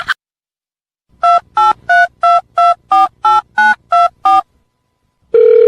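Telephone keypad dialing tones: ten short two-note beeps in quick succession, each key a different pitch pair, like a phone number being dialed. Near the end a steady telephone line tone begins.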